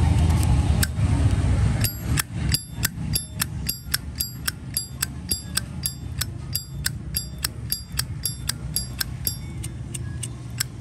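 Zippo lighter's hinged lid flicked open and snapped shut over and over, starting about two seconds in: a run of sharp metallic clinks with a bright ringing note, about three a second.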